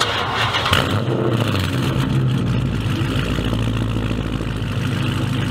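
Chrysler 300C's swapped-in 6.1L SRT8 Hemi V8 idling steadily through its upgraded exhaust.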